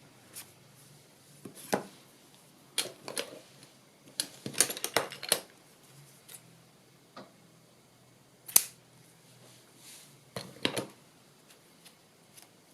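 Scissors snipping a strip of tea-stained linen, with small clicks and taps of craft materials handled on a tabletop: a quick run of snips and clicks about four to five seconds in, and a single louder click at about eight and a half seconds.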